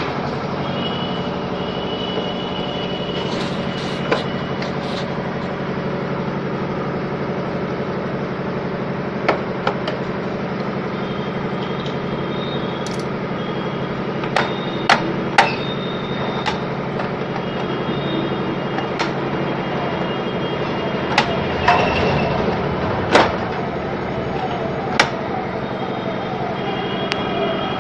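Steady mechanical hum, like a running motor, with scattered sharp clicks and knocks, several of them clustered in the second half.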